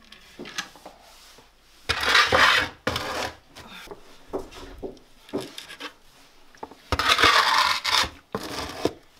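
A wooden bread peel and a metal baking tin scraping over the floor of a masonry bread oven as a paska is pushed inside. There are two long scrapes, about two seconds in and again near the end, with light knocks of the tin and peel between them.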